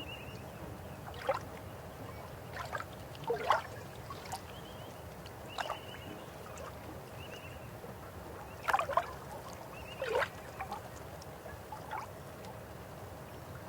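River water flowing steadily, with irregular gurgles and plops. The loudest plops come about three and a half seconds in and again near nine and ten seconds.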